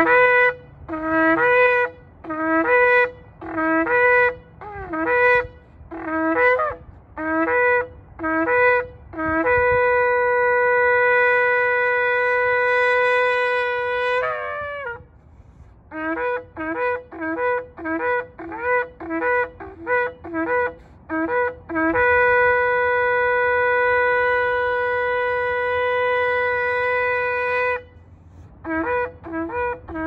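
A long spiralled shofar blown in a sequence of calls: a run of short blasts about one a second, each stepping up from a lower note to a higher one, then a long note held about five seconds that wavers and drops as it breaks off. The pattern repeats with quicker short blasts and a second long held note, and short blasts begin again near the end.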